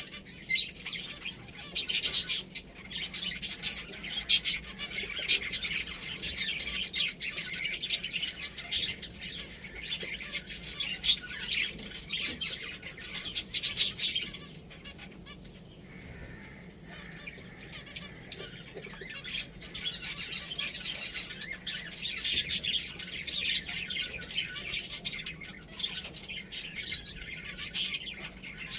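A group of pet finches chirping busily, many short high calls overlapping, with a quieter spell about halfway through before the chirping picks up again.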